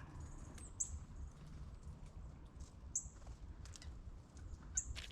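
Small woodland songbirds giving short, very high, thin call notes three times, over light clicks and rustling.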